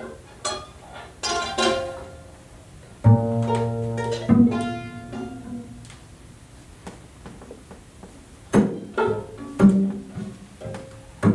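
Free improvisation for viola, cello and double bass: sparse plucked notes and short sounds on the strings. A low note rings out about three seconds in, the middle goes quieter, and a cluster of sharp attacks comes near the end.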